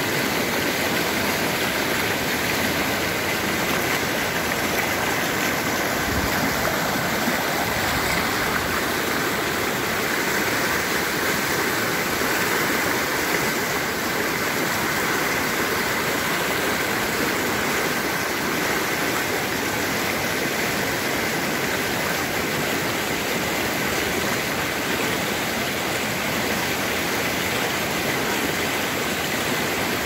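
Gega mountain river rushing over boulders in white-water rapids, a steady, even rush of water.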